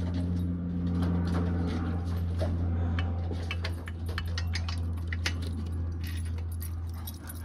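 Wrench and bolts clicking and clinking as the exhaust header bolts come off the cylinder head, in a cluster of sharp metallic clicks through the middle, over a steady low hum.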